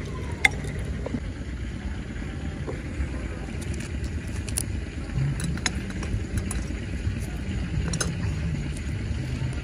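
A steady low rumble like a motor running, with scattered light clicks and ticks over it.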